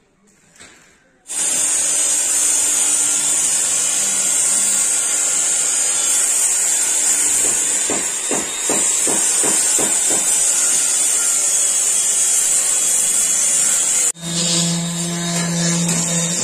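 Electric power tool running steadily with a strong high hiss, starting abruptly about a second in, with a short run of evenly spaced knocks about halfway. Near the end it changes to a lower-pitched motor whine: a hand-held rotary sander working the sheet-metal rear panel of a bus body.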